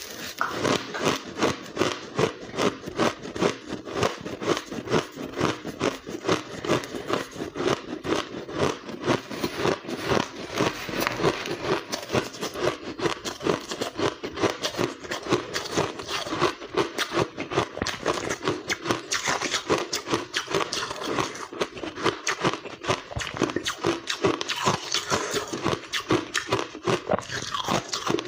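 Close-up crunching of finely blended, snow-like white ice being bitten and chewed, a rapid, unbroken run of crisp crunches.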